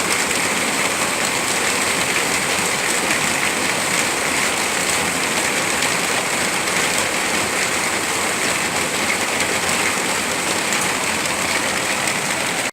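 Steady heavy rain falling, an even hiss of drops with no change in strength.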